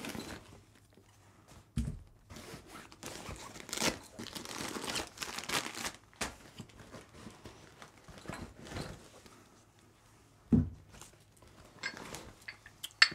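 Rustling and scraping of a padded nylon gear bag being handled, with a dull thump about two seconds in and another later, and a few light clicks near the end.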